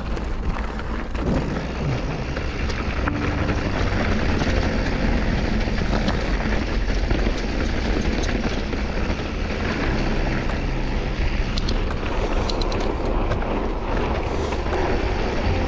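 Mountain bike riding fast on a dirt trail: steady wind rush and rumble on the action camera's microphone, with tyre noise over the ground, and light clicks and rattles in the second half.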